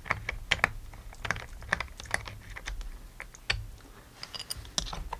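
A screwdriver turning out the single grip screw of a .22 single-action revolver, with the grip parts handled: irregular light clicks and taps, a few a second.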